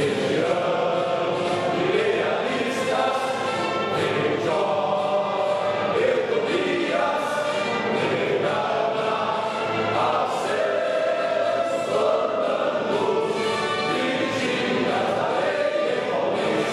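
A choir singing an anthem over instrumental accompaniment, in long held notes at a steady level.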